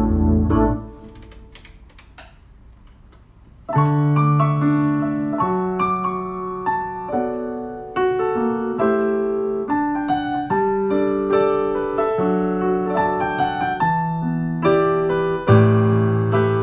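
Piano played solo with no singing. A chord rings out and dies away, there is a short lull, and about four seconds in a slow melody of single notes over bass notes begins and carries on.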